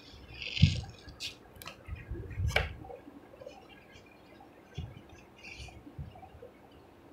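A soapy sponge squeezed in a plastic tub of sudsy water: wet squishing, dripping and fizzing foam. A few sharp clicks and low bumps come in the first three seconds, the loudest a low bump about half a second in, and the sounds are fainter after that.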